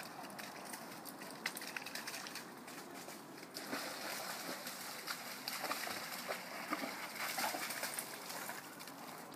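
A young Rhodesian ridgeback splashing and wading in a shallow creek, water sloshing around its legs. The splashing grows louder about three and a half seconds in and eases off near the end. Before that come scattered rustles and steps.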